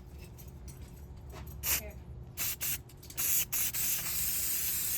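Aerosol spray-paint can spraying in short bursts, then a longer, steadier hiss from about three seconds in with a couple of brief breaks.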